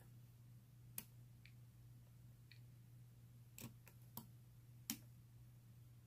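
A lock pick working the pins inside an old Corbin push-key padlock held under tension: a handful of faint, scattered metallic clicks and ticks, the sharpest about a second in and a few more near the end, over a low steady hum.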